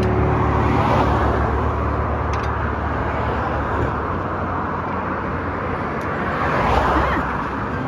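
Highway traffic going past: a steady road rumble, swelling as a vehicle passes near the end, with a couple of faint clicks.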